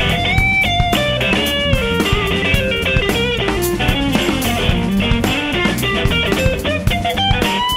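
Live band playing an instrumental passage: an electric guitar melody line sliding between notes over a drum kit, bass and tambourine.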